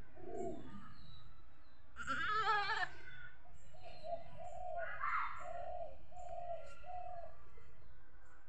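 A nanny goat in labour gives one loud, quavering bleat about two seconds in. Later, a dove coos in a run of about five short, evenly spaced notes.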